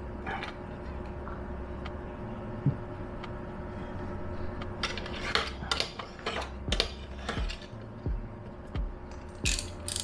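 Tolsen snap-off blade knife scoring a sintra (PVC foam) board along a steel straightedge: a series of short scraping strokes in the second half, after a few quieter seconds with one click.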